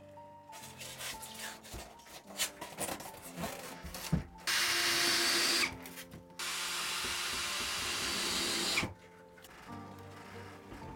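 Spray-foam gun dispensing expanding foam: scattered clicks and scraping, then two loud hisses, the first about a second long and the second about two and a half seconds. Soft background music plays throughout.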